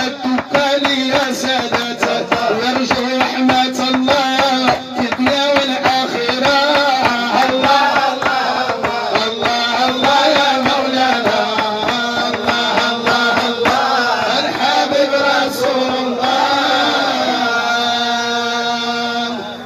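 Background music: a chanted song with singing over a fast drum beat, ending on held notes that stop near the end.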